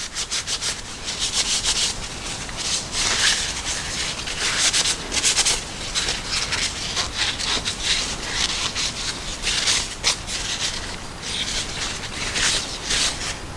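Paper towel wet with isopropyl alcohol scrubbed back and forth over a folding knife's handle scale, a rapid, irregular run of rubbing strokes.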